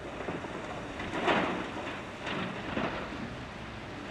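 Blasted rock sliding out of a wheel loader's tipped side dump bucket and falling into a steel dump truck body, in several rattling bursts, the loudest about a second in, with smaller ones near two and three seconds. The loader's engine runs steadily underneath.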